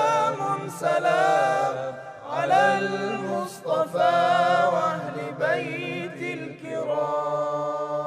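Arabic devotional song (nasheed) of greetings, a sung melody with a steady low drone beneath it; about seven seconds in the melody settles into one long held chord.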